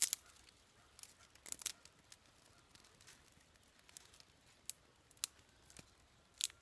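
Dry kindling twigs snapping and crackling: scattered sharp cracks, about half a dozen in all, the loudest at the start and just before the end.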